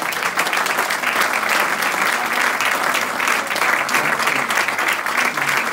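Audience applauding: many people clapping at once in a dense, steady patter, the closing applause for a speech.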